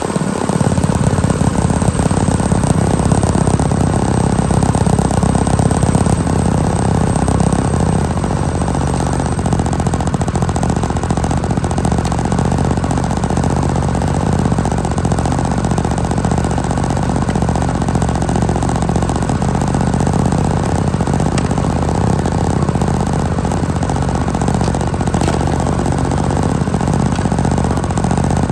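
A Coleman minibike's small single-cylinder four-stroke engine running steadily under way, picking up just after the start and a little louder for the first few seconds.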